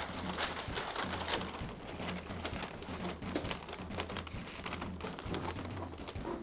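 Large sheets of paper rustling and crinkling as they are rolled up and handled on a table, with scattered movement noises over a low, steady hum.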